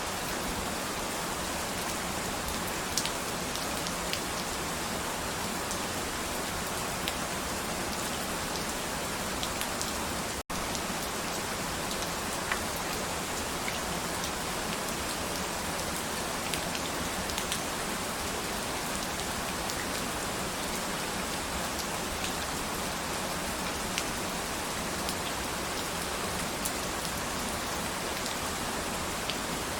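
Steady rain falling, an even hiss with scattered sharp drop ticks on a surface. The sound briefly cuts out once, about a third of the way through.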